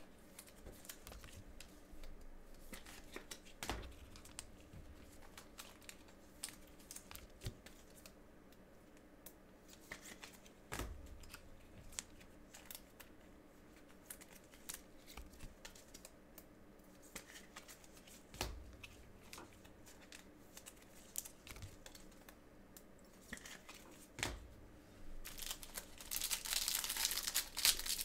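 Scattered soft clicks and taps of trading cards being handled. About three seconds before the end, gloved hands tear open a card pack's plastic wrapper and crinkle it.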